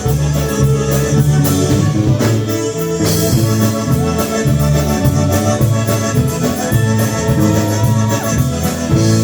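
Live polka band playing an instrumental break between sung verses, with accordion holding the melody over bass and a steady drum beat.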